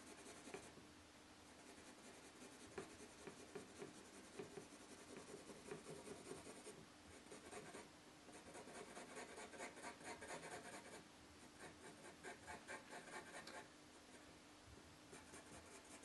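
Graphite pencil hatching on drawing paper: faint, quick back-and-forth strokes in several runs, with short pauses between.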